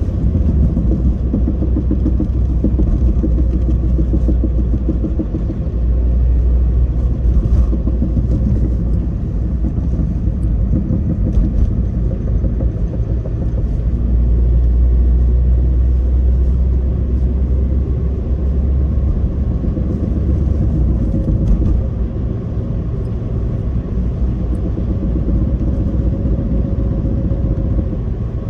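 Suzuki Swift Sport ZC31S driving: a steady low rumble of road and engine noise heard inside the car, with a few faint knocks. This is the front-end knocking that was later traced to play in a worn strut upper mount bearing.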